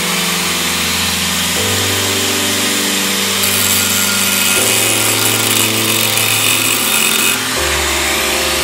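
Handheld angle grinder running with a cut-off disc, the disc biting into a metal plate from about three and a half seconds in until about seven and a half seconds in, when the cutting hiss is strongest.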